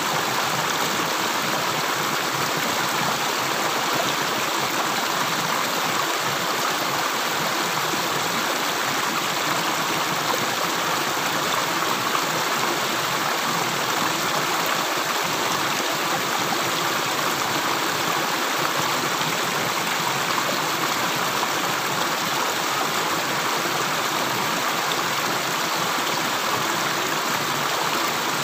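Running water with a steady, even rush that holds unchanged throughout, with no separate drips standing out.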